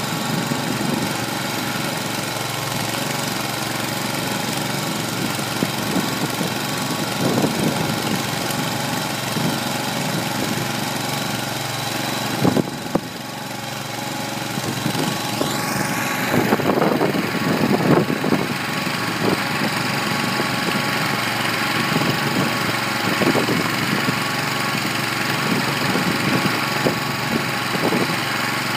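Kohler 25 hp gas engine running a small feed mixer, with irregular knocks as the mixer turns chopped hay. About halfway through the sound dips briefly, then sweeps up in pitch and runs on.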